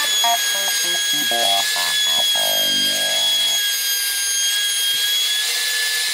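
Table-mounted router running at speed with a steady high whine, its bit cutting into the outside of a warped wooden stave snare-drum shell to true it round. Irregular cutting chatter comes in the first half. At the very end the whine starts to fall away as the router winds down.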